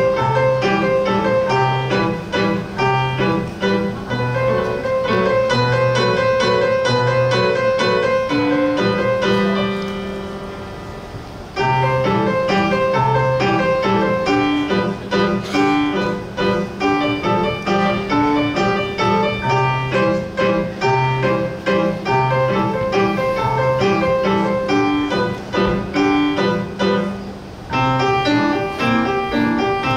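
Solo piano playing a waltz. About ten seconds in, the music tapers off and stops for a moment before the playing resumes at full strength.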